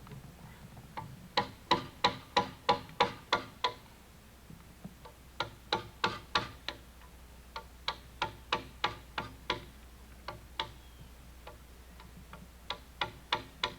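Sharp, ringing strikes of a hand tool in quick runs of several, about three a second, with short pauses between runs, during notching work on a cabin log.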